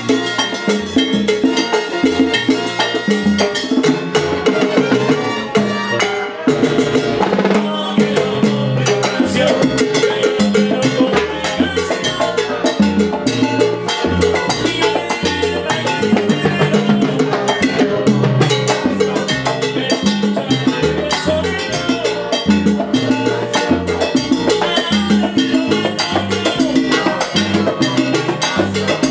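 Live salsa band playing a dance number, horns and percussion over a steady rhythm.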